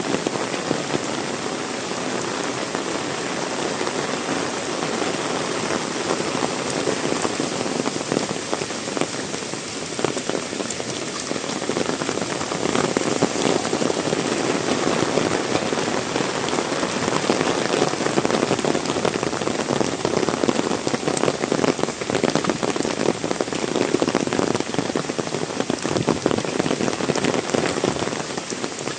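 Heavy rain pouring down and splashing on wet ground, a dense, steady patter of countless drops.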